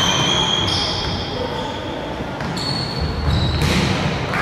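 Volleyball rally on a hardwood court: sneakers squeak in short high tones and the ball is struck, most sharply about three and a half seconds in.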